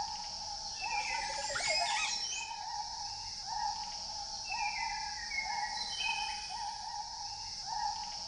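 Background music for a photo slideshow: a short rising figure repeats over and over above a steady high tone, with a sweeping glide about a second in.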